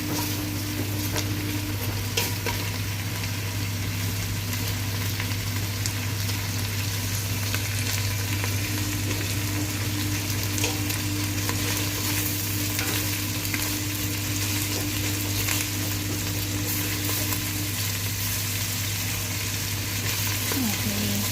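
Chicken pieces sizzling steadily as they fry in melted butter in a pot, with scattered light clicks of a utensil stirring, over a steady low hum.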